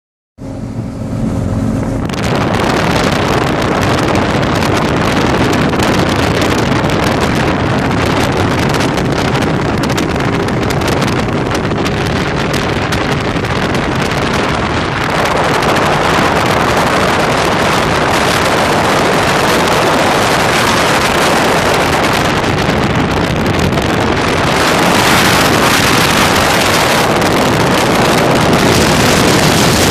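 A 22-foot Velocity 300X powerboat running under way, its engine note soon buried under loud wind rushing over the microphone. The engine tone is plainest in the first couple of seconds, and the rush grows louder about halfway through and again near the end.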